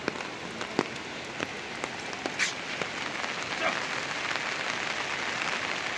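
Heavy rain falling, a steady hiss of rain with scattered sharper drops and drips striking a surface, most distinct in the first few seconds.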